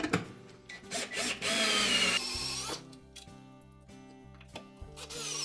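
Cordless drill/driver running bolts into the washer's shaft and drive tube assembly, its motor whining in a run of about a second and a half, then starting again near the end.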